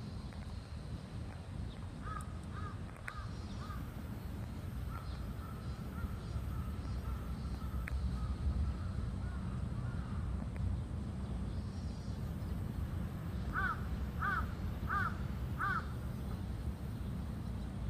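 A bird calling over a steady low rumble: a few short calls about two seconds in, then four short arched calls about two-thirds of a second apart near the end.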